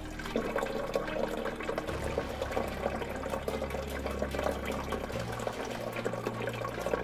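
Water from a water butt's tap running in a steady stream into a plastic watering can, splashing as the can fills. The splashing starts a moment in and carries on.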